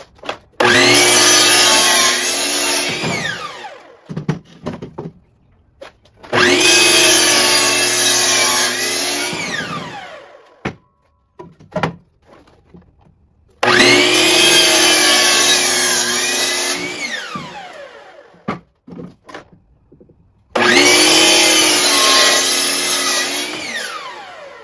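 Hitachi electric miter saw making four crosscuts through a wooden board, about six seconds apart. Each cut starts abruptly with the motor whining at full speed, dips in pitch as the blade goes through the wood, then falls away as the blade spins down; small knocks of the board being handled come between cuts.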